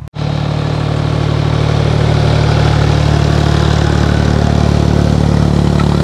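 Ford farm tractor's engine running steadily under load as it pulls a harrow through dry soil. It cuts in abruptly at the start.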